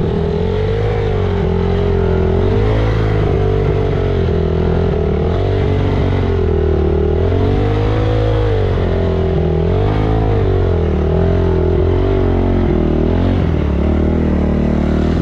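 Honda CRF dirt bike's single-cylinder four-stroke engine running at low speed, its revs rising and falling in repeated slow waves as the throttle is worked through shallow water.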